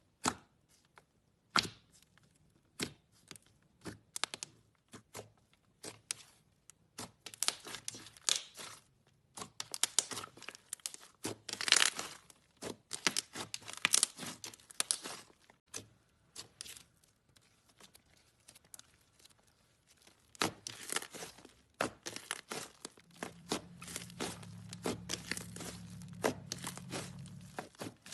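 Crunchy slime being squeezed and worked by hand, giving irregular crackling pops that come in quick dense runs with quieter gaps between.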